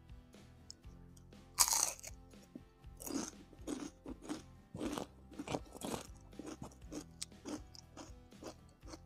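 A bite into crispy battered fried tempeh: one loud crunch about a second and a half in, then crunchy chewing at about two crunches a second that thins out toward the end. Steady background music plays underneath.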